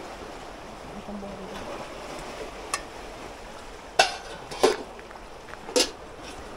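Steady wash of sea waves on the shore, with four short sharp knocks, the loudest two close together about four seconds in.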